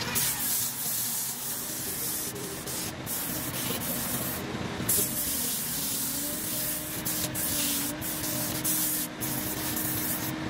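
Sandpaper held against a wooden spindle spinning on a lathe: a steady hissing rasp that drops out briefly a few times. A low steady hum runs underneath in the second half.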